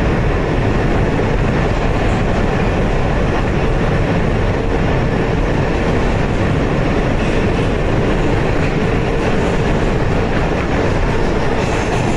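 R160B subway car with Siemens propulsion running at speed, heard from inside the car: a loud, steady rumble of wheels on rail with a faint steady tone over it.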